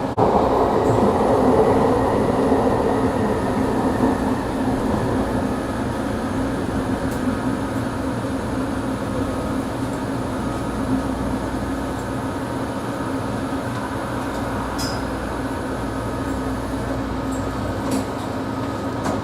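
Bombardier ART single-car light-metro train running on steel wheels, heard from inside the car: a steady rumble with a constant hum, louder for the first few seconds, and a few faint clicks.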